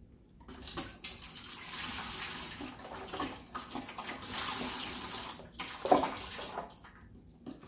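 Chicken broth poured from a carton into a large metal stockpot, a steady splashing stream of liquid with a brief dip partway, followed by a single sharp knock about six seconds in.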